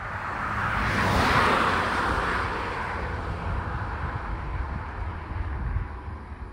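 A road vehicle drives past close by: a swell of tyre and engine noise that peaks about a second in and fades over the next few seconds, over a low wind rumble on the microphone.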